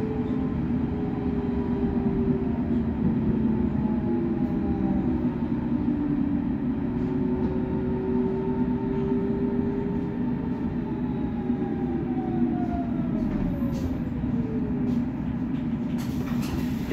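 S-Bahn Berlin electric trains at a station platform: a steady electrical hum from the train's traction equipment, with several whines that slowly fall in pitch through the middle.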